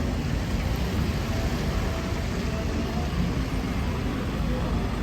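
Busy city-street ambience in the rain: road traffic running past with a steady wet hiss and a low rumble, with no single event standing out.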